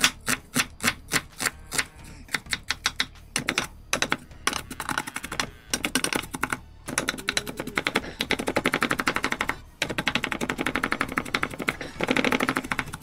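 Chef's knife chopping an onion on a wooden cutting board: sharp knife strikes on the board, a few a second at first, then long rapid runs of fast chopping broken by brief pauses.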